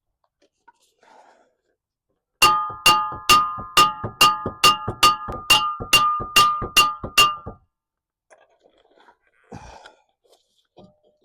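About a dozen hard hammer blows on metal, roughly two a second, each one ringing with a clear metallic tone, while a car's front brake assembly is being worked on. Then faint handling noises.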